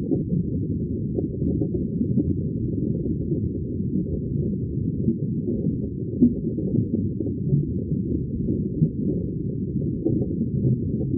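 Muffled, steady rumble of flowing river water heard through an underwater camera's waterproof housing, with a few faint knocks.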